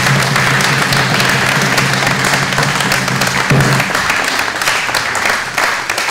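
Audience applauding, dense clapping from many hands, over background music with a held low note that drops away a little over halfway through.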